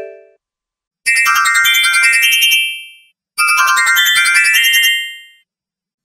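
Sony Ericsson mobile phone ringtone melody in an edited, high-pitched effects version: a quick run of bright electronic notes that plays twice, each phrase about two seconds long and fading out, with a short silence between.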